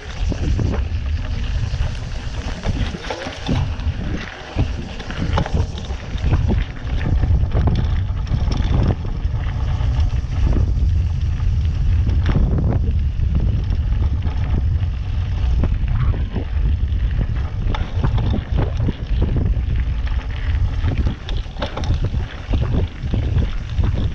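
Mountain bike riding fast down a dirt forest trail: wind buffets the microphone in a steady heavy rumble, and the bike rattles and knocks many times as it runs over bumps and roots.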